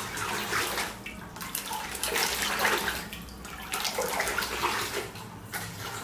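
Water gushing and splashing as it is pumped round by a 24 V micro brushless DC circulation pump (DC50A-2450S) that has just been switched on. The flow surges unevenly, swelling and easing every second or two.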